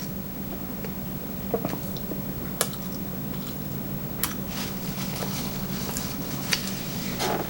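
Close-miked mouth sounds of a person chewing sushi: soft wet smacks and sharp little clicks at irregular intervals, over a steady low hum.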